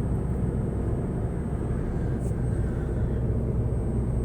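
Steady road and engine rumble heard from inside a moving car's cabin, with a faint tick about two seconds in.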